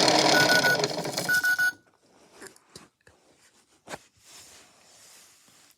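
Toy washing machine running with a loud whir, giving two short electronic beeps, then its motor stopping abruptly a little under two seconds in. A few faint clicks and knocks follow.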